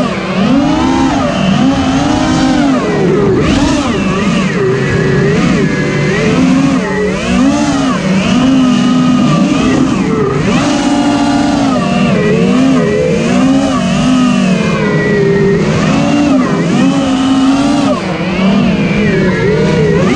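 FPV quadcopter's brushless motors and propellers whining, the pitch swinging up and down again and again as the throttle is worked in flight.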